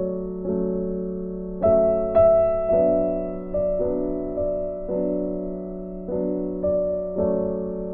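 Background music: piano chords struck every half second to a second, each ringing and fading before the next.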